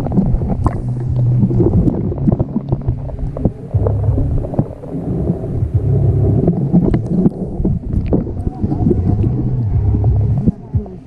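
Muffled underwater sound of river water knocking and sloshing against a submerged camera: a heavy low rumble scattered with many small clicks. The camera comes up out of the water near the end.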